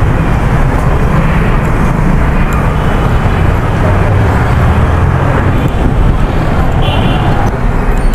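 Busy street traffic, with motorbikes and cars running past in a steady loud rumble. A brief high-pitched tone sounds near the end.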